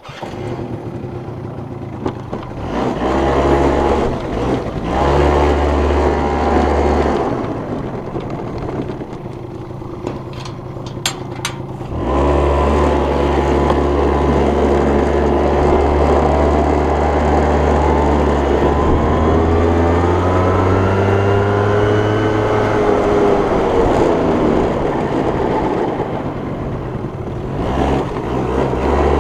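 Yamaha Mint scooter's two-stroke engine running under way, revving up and easing off. It gets louder partway through, and later its pitch climbs and falls back once.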